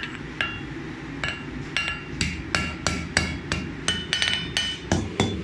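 Hand hammer striking a hot steel bar on an anvil, drawing the bar out thin. A few spaced blows come first, then a quicker run of about three a second from about two seconds in, each with a short metallic ring.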